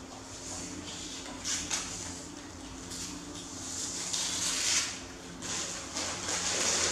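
Intermittent scratching and rustling noises, a few short hissy scrapes over a faint steady low hum.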